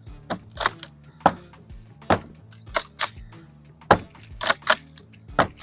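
Hammer blows on wooden fence boards: about ten sharp, irregularly spaced strikes, over background music.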